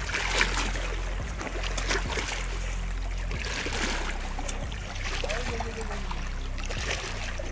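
Small waves lapping and splashing against shallow coral rocks, over a steady low rumble.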